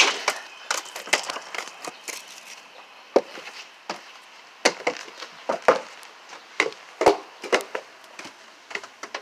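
Irregular knocks and clicks, unevenly spaced at roughly two a second, some sharp and loud, over a faint hiss.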